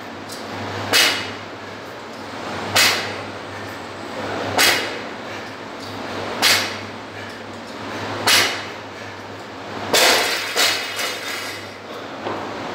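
Short, sharp sounds about every two seconds, then about ten seconds in a loaded 50 kg barbell is dropped onto the rubber gym floor, bouncing and rattling for about a second and a half.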